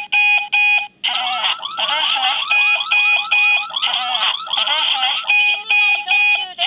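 Crane suspended-load warning alarm sounding loudly: a fast warbling siren tone alternates with runs of short, evenly spaced steady beeps, over and over.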